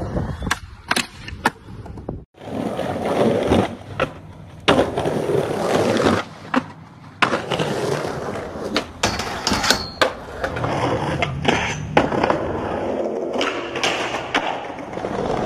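Skateboards rolling on concrete and rock, with repeated sharp clacks of boards popping and landing over several separate runs.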